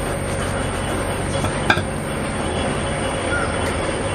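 A steady low mechanical hum with background noise throughout, and a single sharp click about a second and a half in.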